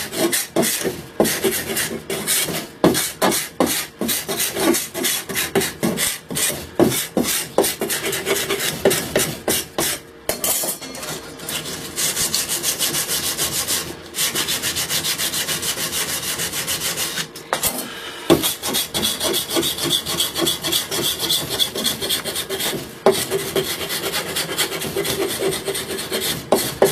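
Steel card scraper worked by hand in quick, repeated strokes along the curved wooden arm of a saw frame, a dry scraping and rasping on wood. In places the strokes come so fast they run together into an even scrape.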